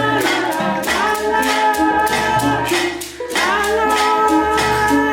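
Traditional Ghanaian music: voices singing long held phrases over a shaken rattle keeping a steady beat, with a short break between phrases about three seconds in.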